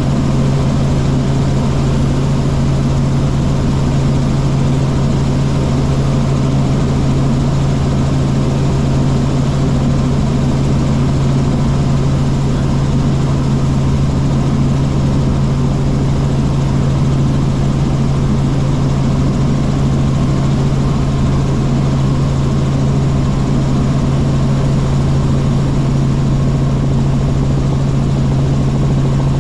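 Helicopter rotor and engine running at a steady drone, with a strong constant low hum under an even rushing noise.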